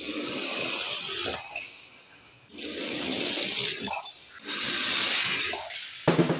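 Die-cast toy cars rolling and sliding across a laminate floor: three runs of hissing wheel and scraping noise, each a second or two long. Drum music starts near the end.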